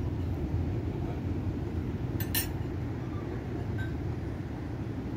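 A quick pair of clinks from tableware (cutlery against plates or glass) about two seconds in, over a steady low rumble.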